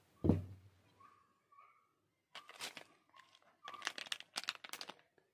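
A soft thump about a quarter second in, then a plastic Cadbury Gems sweet packet crinkling in the fingers, on and off through the second half.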